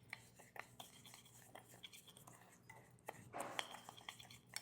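Faint clinks and scrapes of a utensil stirring an oil-and-spice seasoning mix in a bowl, with a slightly longer scrape a little past three seconds in.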